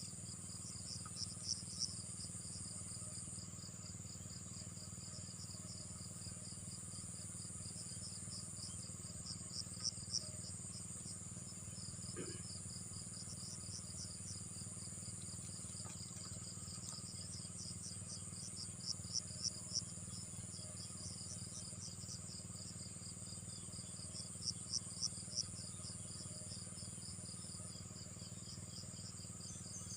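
Insects chirping in quick pulsed trills over a steady high-pitched insect drone, with a few louder runs of three or four chirps now and then.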